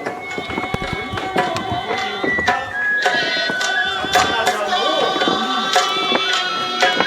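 Stage music for a kabuki comedy: a melody of held notes over frequent sharp drum or percussion strikes, fuller and louder from about three seconds in.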